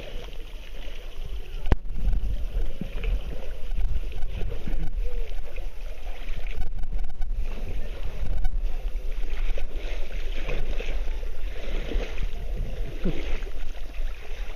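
Water lapping and splashing around inflatable inner tubes as riders float and paddle by hand, over a steady low rumble on the microphone.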